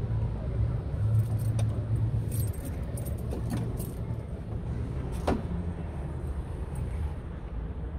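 A run of light metallic clicks and jingling over a steady low rumble, with one short tone about five seconds in.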